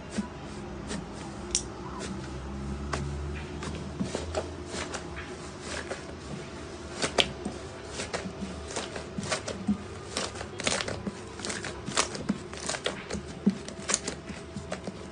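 Slime being squeezed and poked by hand, making irregular sticky clicks and crackles, a few each second.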